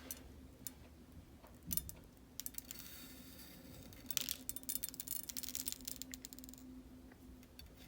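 Candy sprinkles rattling in their container and pattering out as they are shaken, a dense run of tiny clicks that builds up about two seconds in and stops shortly before the end.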